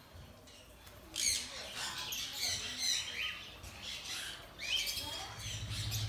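Aviary birds chirping: many short, high calls and squeaks, starting about a second in. A low steady hum comes in near the end.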